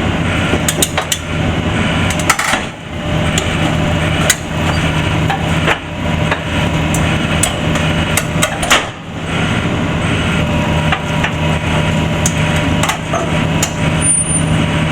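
Demolition excavator's engine running steadily, with many sharp cracks and knocks of timber and debris being broken and handled.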